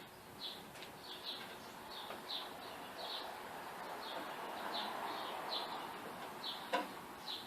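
A bird chirping repeatedly, short high chirps coming at irregular intervals, faint behind a low hiss. A single sharp click sounds near the end.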